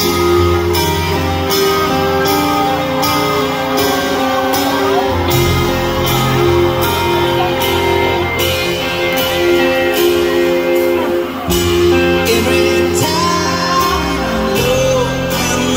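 Live rock band playing a slow song, with electric guitars, bass, drums and keyboard, and a drum beat about every 0.8 s. A male lead voice starts singing about five seconds in.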